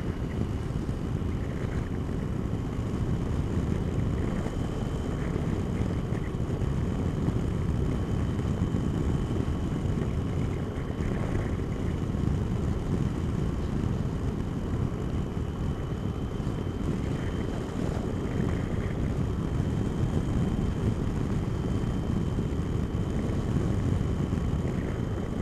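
Wind rushing over a microphone inside a motorcycle helmet, over the steady running of a Triumph Tiger's engine on the move, with a faint steady high whine throughout.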